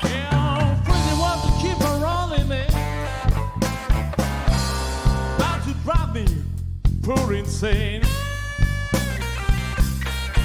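Slow blues from an electric trio: a lead electric guitar plays bent-string phrases over a steady bass line and a Gretsch drum kit keeping a regular beat.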